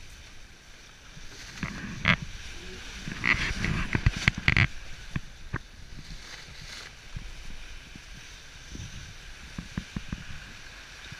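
Bow wave rushing and splashing along the hull of a sailing yacht under way, a steady hiss with a few louder rushes in the first five seconds.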